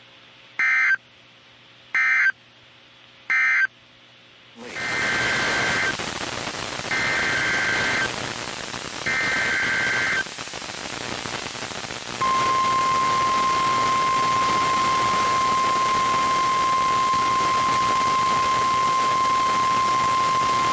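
NOAA Weather Radio alerting signals. Three short SAME data bursts (the end-of-message code) close one warning. Radio hiss then comes up, and three longer SAME header bursts start the next warning, followed by the steady 1050 Hz weather radio alert tone held for about nine seconds.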